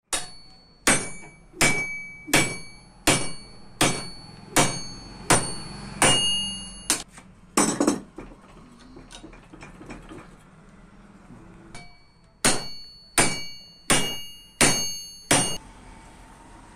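Hammer blows on a steel rod driven into a crankshaft's pilot-bearing bore packed with green leaves, each blow ringing metallically. The blows come about one every three-quarters of a second, eleven of them. A few seconds of faint handling noise follow, then five more blows near the end. This is the hydraulic trick of forcing out a pilot bearing by hammering a rod into the packed bore.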